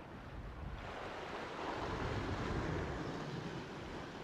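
Sea waves washing against the shore rocks, a surge of wash building about a second in and easing off near the end, with wind on the microphone.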